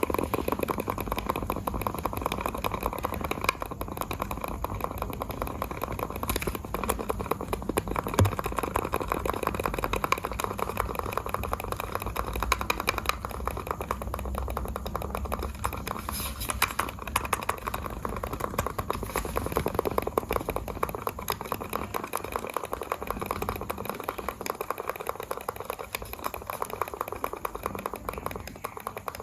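Computer mouse buttons clicked rapidly and continuously, a dense run of sharp clicks.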